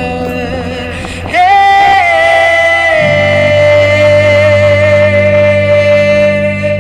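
A band playing live, with a singer sliding up into one long held note about a second and a half in, over sustained low chords.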